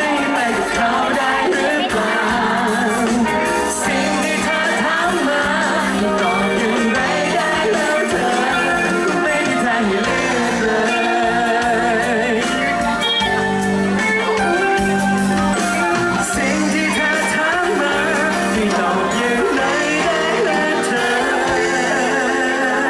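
A man singing a Thai song live into a handheld microphone over loud backing music.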